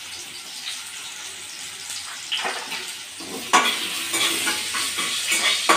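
Potatoes frying in hot oil in a wok, with a steady sizzle. From about halfway through, a metal spatula stirs them and knocks and scrapes against the pan, giving sharp clinks that are the loudest sounds.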